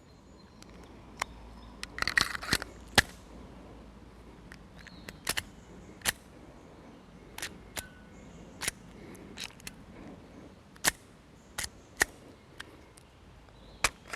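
Handling noise: a string of sharp clicks and small knocks, with a quick cluster of rattling clicks about two seconds in and single clicks every second or so after.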